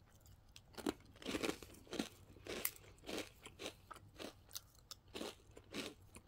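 Crisp black sesame roll cookie crackling and crunching as it is unrolled by hand: a run of irregular sharp cracks, a few a second, as the brittle wafer breaks.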